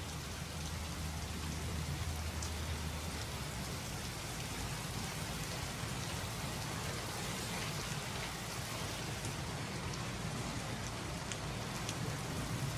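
Steady heavy rain falling, with faint scattered drop ticks; a low rumble underneath fades out about two seconds in.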